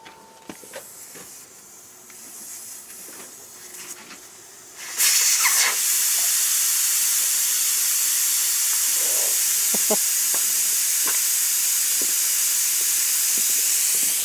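Aerosol can of brake cleaner spraying in one long, steady hiss that starts suddenly about five seconds in, after a few quiet seconds with small clicks.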